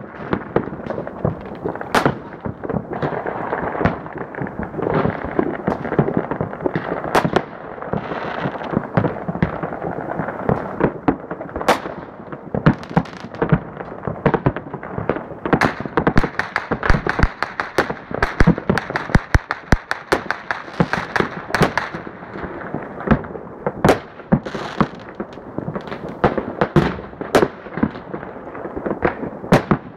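New Year's fireworks and firecrackers going off across a town: an unbroken background of distant bangs and crackle, cut by sharp close cracks, thickening into rapid strings of bangs about halfway through.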